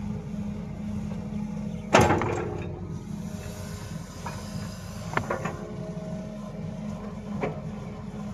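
JCB 3DX backhoe loader's diesel engine running steadily while its bucket digs into clay soil. A loud clank rings out about two seconds in, and two lighter knocks follow later.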